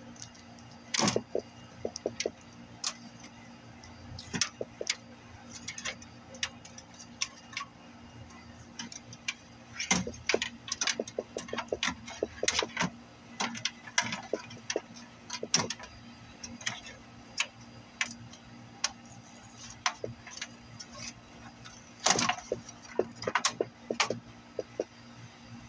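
Irregular clicks and taps of plastic wire-harness connectors being unplugged and cables pulled loose against the sheet-steel back panel of a flat-screen TV, with dense clusters of clicks about ten seconds in and again near the end.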